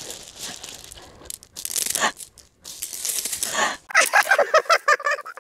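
Small pebbles crunching and clattering on a gravel ground as hands scoop up and toss stones in a game of gonggi. A voice comes in near the end.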